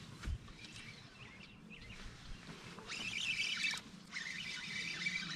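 Fishing reel being cranked quickly while a hooked bass pulls against the bent rod: a fluttering whir from about three seconds in, broken briefly near four seconds. A single dull thump sounds just after the start.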